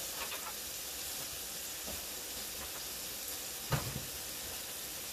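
Seasoned New York strip steak frying in a hot pan, a steady sizzle, with a single short knock about three and a half seconds in.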